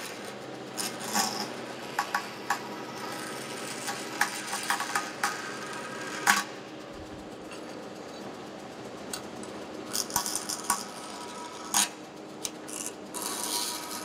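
DoAll vertical metal-cutting bandsaw running, its blade cutting through cast brass: a steady running sound with scattered sharp ticks and rattles as the brass piece is fed and shifted on the table.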